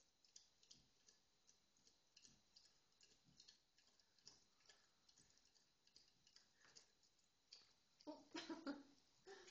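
Pit bull puppy lapping water: faint wet clicks, two or three a second. About a second and a half before the end there is a louder, throaty noise.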